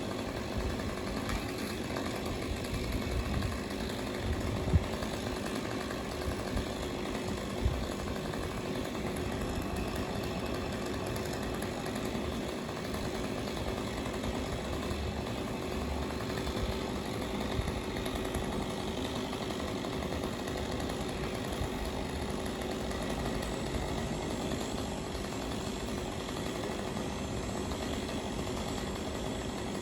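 Engine-driven tree-removal power equipment running steadily, with a few sharp knocks about five and eight seconds in.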